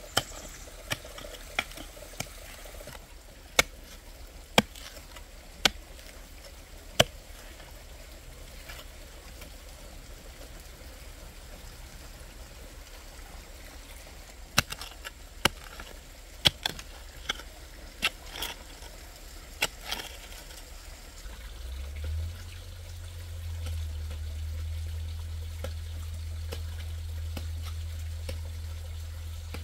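Water trickling, with scattered sharp knocks and taps; a low steady hum sets in about three-quarters of the way through.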